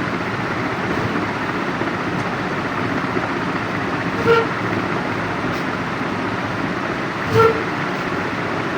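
Two short vehicle horn toots, about three seconds apart, over a steady background noise.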